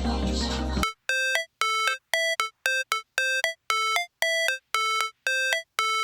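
Background music: the full beat drops out about a second in, leaving a single instrument playing short, separate notes, roughly two a second, with silence between them.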